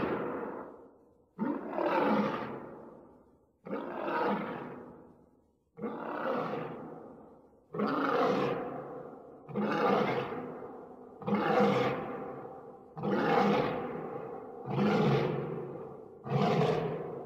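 Lion roaring sound effect: a run of about nine roars, one roughly every two seconds, each starting suddenly and fading away.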